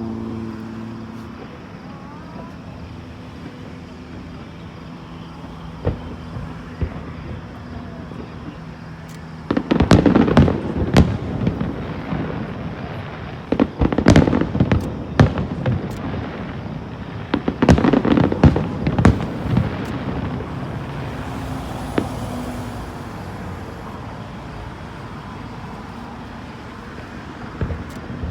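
Aerial fireworks display: after a stretch of low steady hum, shells start bursting about a third of the way in, with sharp bangs and crackle coming in three clusters a few seconds apart, then dying down before another volley begins at the very end.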